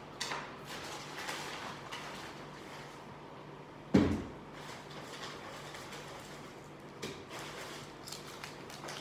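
Paper sticker packet and stickers being handled, with scattered rustling and crinkling. One dull thump about four seconds in is much the loudest sound.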